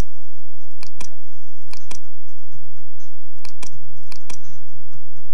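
Computer mouse clicking: a string of sharp single clicks and quick double clicks over a steady low hum.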